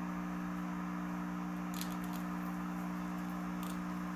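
Steady low hum, unchanging throughout, with a few faint soft rustles.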